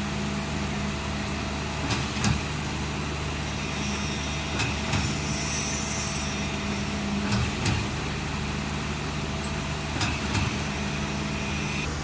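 Engine of a truck-mounted concrete mixer pump running steadily, with a pair of knocks about every two and a half seconds as the concrete pump cycles.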